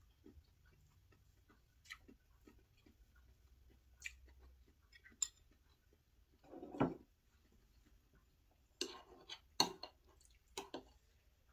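Eating at a meal: scattered small clicks and clinks of dishes and cutlery, with chewing. A longer, louder noise comes about seven seconds in, and a quick run of louder clicks follows about nine to eleven seconds in.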